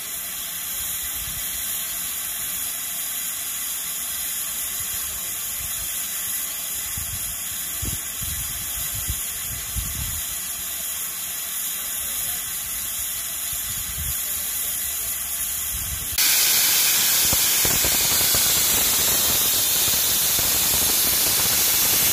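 Steam locomotive letting off steam: a steady hiss that suddenly gets louder and brighter about sixteen seconds in.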